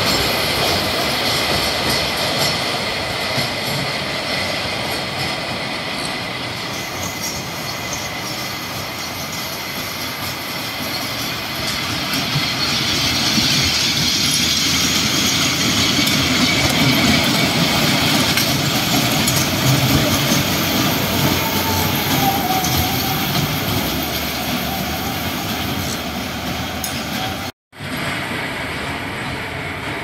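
Wacky Worm kiddie roller coaster train running along its steel track, a continuous rolling and rattling of wheels that grows louder as the train passes close about halfway through. The sound cuts out for a moment near the end.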